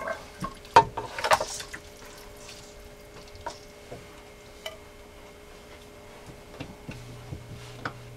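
Raw chicken drumsticks being placed by hand into a pot of broth: two sharp splashes in the first second and a half, then scattered small plops and clicks as more pieces go in.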